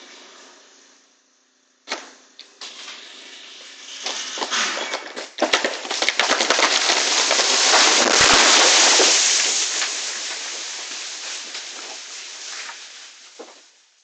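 A large tree falling: a sharp crack about two seconds in and more snaps, then a long crash of breaking branches that builds to a heavy thud about eight seconds in as it strikes the house, dying away over several seconds.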